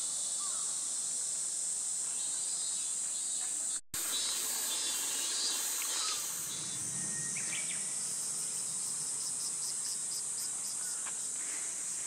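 Steady high-pitched insect chorus of summer crickets or cicadas, with a second insect adding evenly pulsed chirps in the second half. The sound breaks off for a moment about four seconds in.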